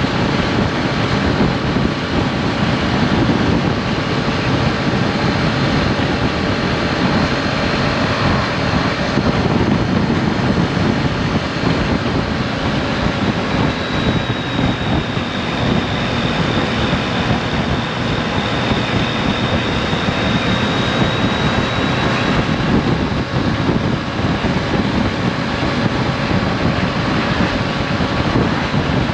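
Triumph Street Triple RS motorcycle cruising at a steady speed: its 765 cc three-cylinder engine drones evenly under heavy wind rush over the microphone. A thin high whine holds for several seconds midway.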